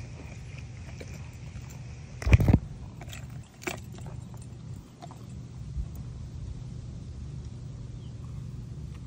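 Handling noise on a phone microphone: a loud scuff or bump a little over two seconds in, then a few lighter clicks, over a steady low rumble.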